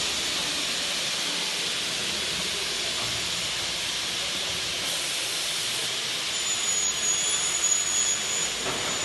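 Profile machining and cutting center running with a steady hiss; about six seconds in a high-pitched whine joins for a couple of seconds.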